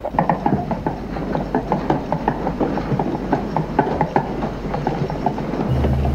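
Plastic wheels of a child's tricycle clattering and rattling along a hallway floor, a fast irregular run of clicks. A low steady hum comes in near the end.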